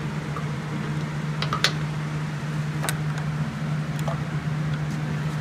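A handful of light, sharp clicks as a motorcycle clutch lever is worked out of its perch after its pivot bolt is removed, over a steady low hum.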